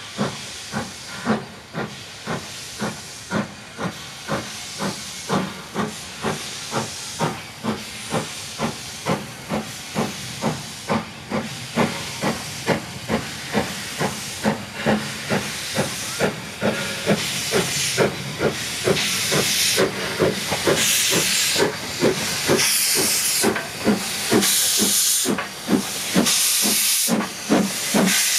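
Double-headed narrow-gauge steam train led by an AC16 locomotive working hard: a steady run of exhaust chuffs from the two engines, about two to three a second, over hissing steam from the open cylinder drain cocks. It grows louder, and the hiss stronger, as the locomotives draw level near the end.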